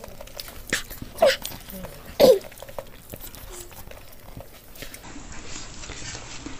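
Two short, high whimpers about a second apart, the first about a second in and the second a little louder, over faint small clicks and rustles.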